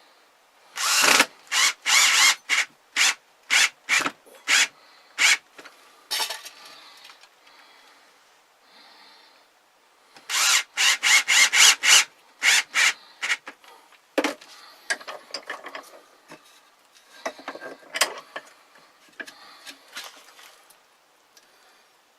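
A hand tool worked on wood in repeated rasping strokes: a quick run of about a dozen strokes, a pause, a second quick run, then slower, scattered strokes.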